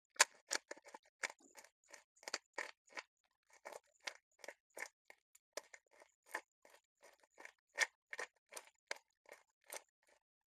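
Black pepper mill being twisted by hand, grinding peppercorns in a steady run of short crunching clicks, about three a second.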